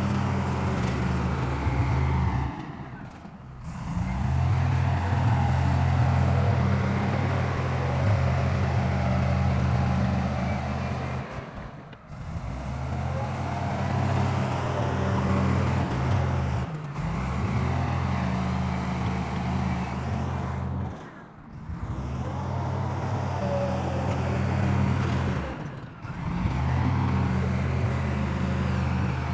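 A heavy diesel engine of earthmoving machinery runs steadily with a low hum. The sound drops away briefly and suddenly about five times.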